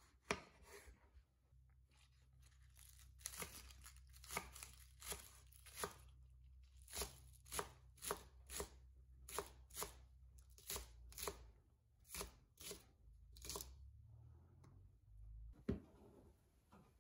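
Chef's knife chopping spring onions on an end-grain wooden cutting board: a steady run of knife strikes on the board, about two a second, then a brief scrape and a single knock near the end.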